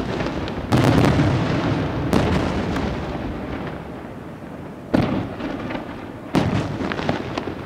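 Aerial firework shells bursting in a professional display: four loud, sharp bangs at uneven gaps, each trailing off in a rolling rumble that fades before the next.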